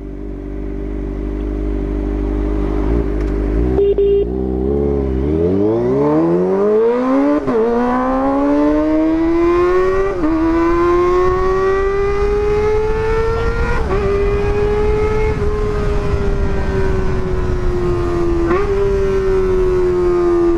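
Kawasaki ZX-25RR 250 cc inline-four with a Pro Liner aftermarket exhaust running at low revs, then pulling away about four seconds in. Its pitch climbs steeply as it accelerates, with a brief dip at each upshift, four of them, then levels off at cruising revs.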